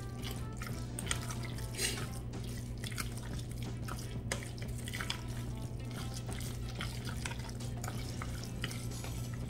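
Plastic spoon stirring wet, mayonnaise-dressed tuna salad in a stainless steel bowl: wet squelching with irregular small scrapes and taps of the spoon against the bowl.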